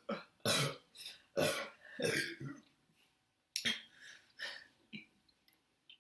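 A woman burping repeatedly after drinking cola: a quick string of short, loud burps, a pause about three seconds in, then a few more, smaller burps.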